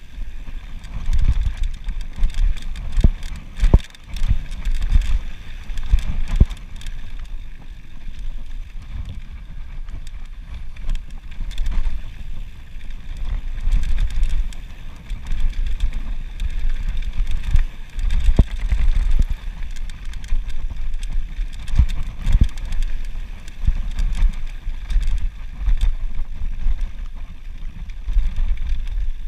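Mountain bike descending a rocky gravel trail: wind buffeting the action camera's microphone, with tyres crunching over loose stones and frequent sharp knocks and rattles as the bike hits bumps.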